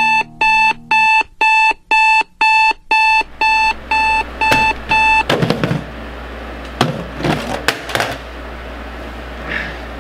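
Digital alarm clock beeping about twice a second, then cutting off about five seconds in. After it stops, bedding rustles with a few soft knocks as the sleeper shifts under the comforter.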